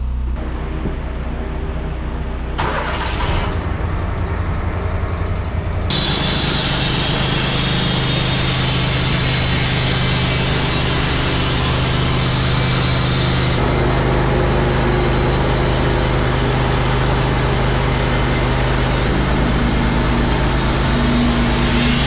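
Wood-Mizer LT15 Wide bandsaw mill's engine running steadily. From about six seconds in, a loud steady hiss joins it as the band blade saws a top cut through an Eastern white pine log.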